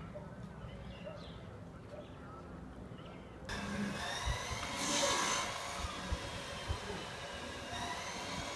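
Outdoor town ambience: a steady low rumble of distant traffic with faint high chirping tones and a few soft knocks. The sound changes abruptly about three and a half seconds in, where the shot cuts.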